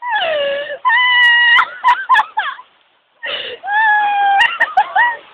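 A high-pitched voice letting out long wordless wails and whimpers, some held and some falling in pitch, in two runs with a short pause about three seconds in.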